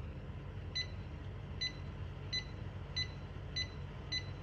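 Napoleon Purview 42 electric fireplace giving five short high beeps, one for each button press as the temperature setting is stepped up, under the steady low hum of its fan.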